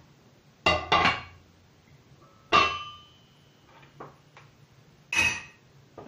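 Metal cooking pots and a pot lid clanking: two knocks about a second in, a louder clank that rings briefly about halfway through, a few light taps, and another clank near the end.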